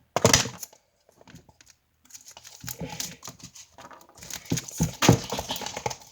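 A spoon stirring and scraping through thickening slime in a bowl: irregular clicks, knocks and sticky scraping, with one louder knock right at the start.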